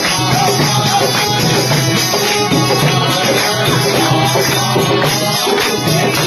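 Devotional music playing loudly and continuously.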